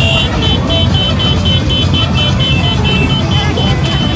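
High-pitched electronic beeping, about four short beeps a second, that breaks off from a steady held tone, over a steady low rumble.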